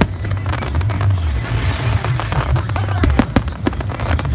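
Aerial firework shells bursting: many sharp bangs and crackles in quick succession, over background music.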